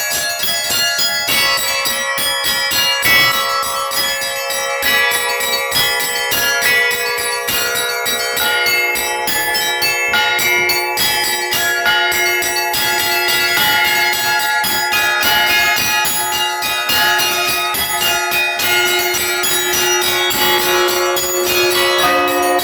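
Orthodox church bell ringing played by one bell ringer on a belfry's set of bells: quick, dense strikes of the small bells over the longer, held tones of larger bells.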